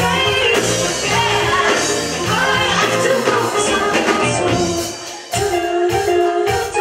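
Live rock band playing with women singing: drums, electric guitar, bass and keyboard under the vocals. The music drops briefly about five seconds in, then comes back with drum hits.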